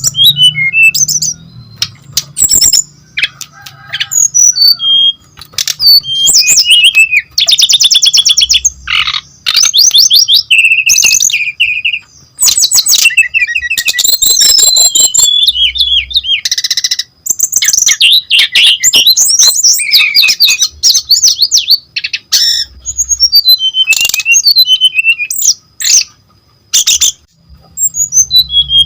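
Brown-chested jungle flycatcher singing in full, loud song: a fast, varied run of trills, chirps, sweeping whistles and harsh clicking notes, with brief pauses between phrases.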